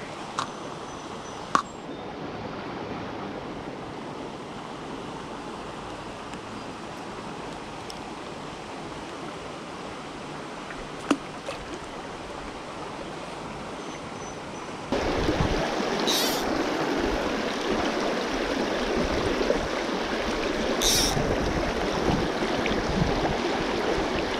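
Shallow rocky stream rushing and gurgling over stones in a steady wash, which gets suddenly louder about halfway through. A few sharp clicks come near the start, and two short hisses come later.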